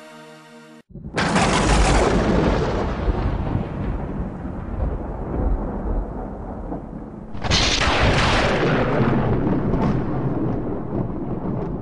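Closing music ends a second in, then two loud rumbling crashes, the first just after the music stops and the second about six seconds later, each starting suddenly and dying away slowly over several seconds.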